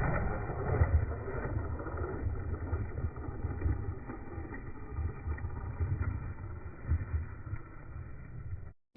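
Small electric RC truck driving over rough ground, its motor whirring under a jumble of low bumps and rumble from the terrain. It cuts off abruptly near the end.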